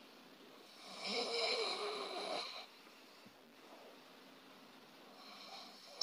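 A person snoring: one loud, rough snore with a wavering pitch lasting about two seconds, then a fainter breath near the end. It is the sound of an airway narrowed further, close to hypopnea.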